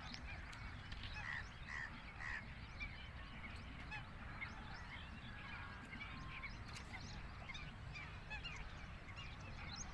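Birds chirping and calling all around, many short overlapping calls, over a low steady rumble.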